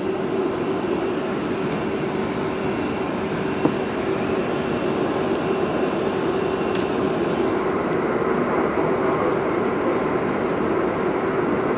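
Inside an R142A subway car barely moving on the elevated track: a steady rumble and hiss with a constant mid-pitched drone from the car's equipment.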